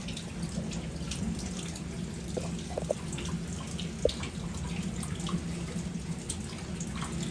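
Water running in a steady trickle, with scattered small drips and splashes, over a low steady hum.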